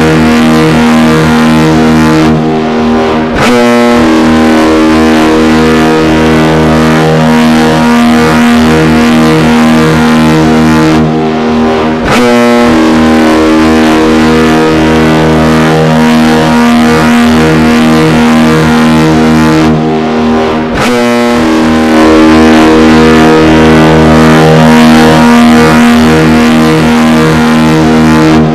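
Federal Signal Thunderbolt siren sounding a long steady tone. Three times, about nine seconds apart, the sound briefly dulls and wavers before coming back full as the rotating horn turns away and back.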